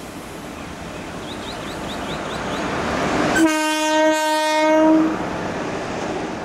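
WAP1 electric locomotive's horn sounding one steady blast of about a second and a half as the locomotive passes close underneath. It rises out of the growing rumble of the train approaching on the track, and the rumble carries on after the horn stops.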